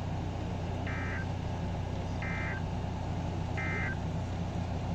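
NOAA Weather Radio SAME data tones: the end-of-message code that closes an Emergency Alert System warning, sent as three short electronic chirps a little over a second apart. A steady low hum runs underneath.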